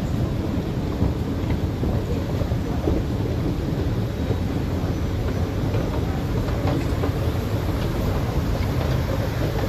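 Steady low rumbling ambience of an underground MRT station platform, with no single sound standing out.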